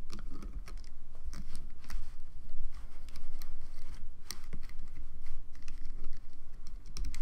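Irregular light clicks and scratches of a plastic hook and fingers working rubber bands over the pegs of a clear plastic bracelet loom.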